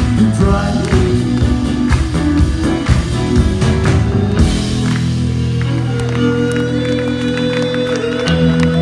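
Live rock band playing: drums and electric guitars drive the beat for about four seconds, then after a cymbal crash the drumming stops and guitars and bass ring out on long held notes.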